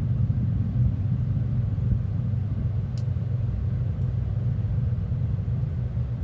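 Steady low rumble of street traffic, with one faint click about three seconds in.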